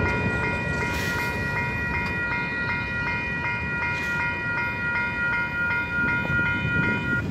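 Railway level-crossing warning bell ringing fast, about four strikes a second, over a low rumble. The bell cuts off near the end as the gates rise: the crossing is clearing after the train.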